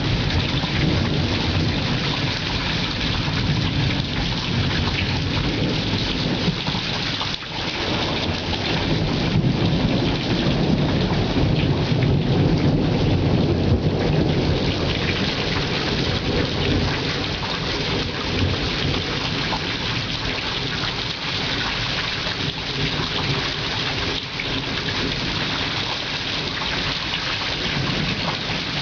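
Thunderstorm: steady rain with rolling thunder. The thunder rumble builds about a third of the way in and eases off after the middle.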